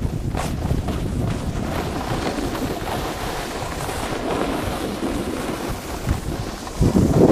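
Wind buffeting the microphone over the scrape and hiss of a Burton Custom Camber snowboard carving across packed snow, growing louder near the end.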